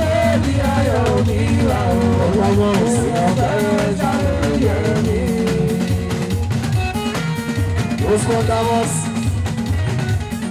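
Live fuji band music: a lead voice carrying a wavering melodic line over steady drums and percussion.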